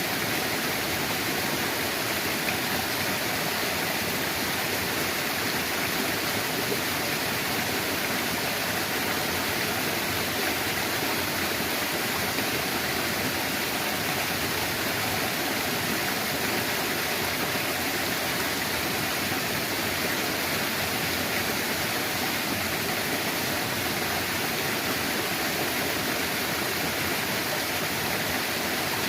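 Water pouring steadily from a fish pond's outflow, a constant rushing with no breaks.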